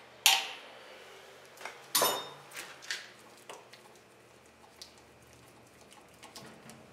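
Hammer blows on a steel tool set against the brake rotor's retaining screws, knocking loose screws that are extremely tight: one sharp crack just after the start and a second, ringing strike about two seconds in. A few light metallic clicks follow as a freed screw is worked out by hand.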